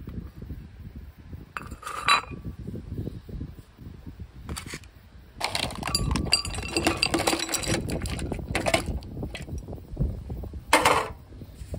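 Hard, brittle yellow shards full of unpopped corn kernels clinking and clattering as they are tipped out of an aluminium foil pie pan onto a ceramic plate. A sharp clink comes about two seconds in, a dense clatter of pieces falling runs from about five to nine seconds, and another short loud clatter comes near the end.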